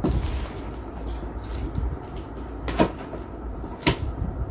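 Packing tape on a large cardboard box being cut open, with cardboard rustling and scraping, and two sharp cracks about three seconds in and a second later.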